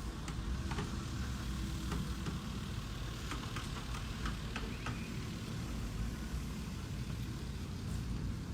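Construction-site background: a steady low engine rumble of machinery running, with scattered light clicks and knocks.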